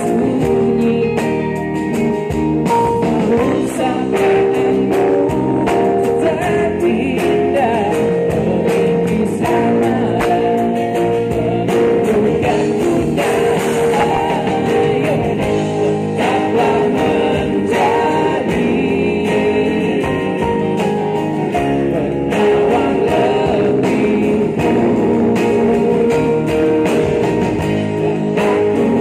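Live pop band playing a song with sung lead vocals over electric and acoustic guitars, keyboards and drums, at a steady loud level.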